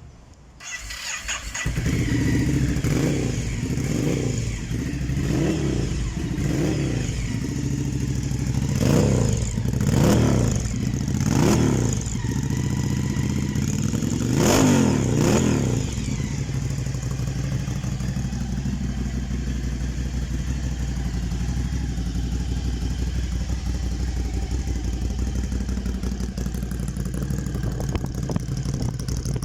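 Ducati Monster 797's air-cooled L-twin starting up about a second in, then blipped with short throttle revs: five quick ones, three bigger ones, and a longer rev about halfway through. It then settles into a steady idle.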